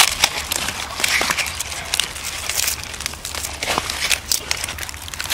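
Hands stuffing a raw plucked chicken on large fresh leaves: irregular crinkling of the leaves and short wet clicks and crackles from handling the meat.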